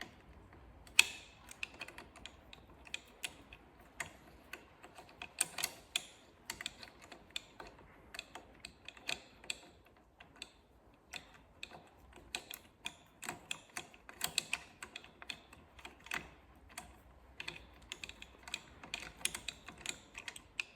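A socket and bolt being worked onto the auxiliary light bracket: irregular light clicks and metal taps, with one sharper clack about a second in.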